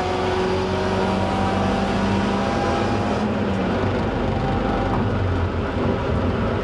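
Supercharged 1.8-litre four-cylinder engine of a 1995 Mazda Miata, heard from inside the cabin, running steadily under heavy road and wind noise. Its tone slowly falls in pitch over the first few seconds.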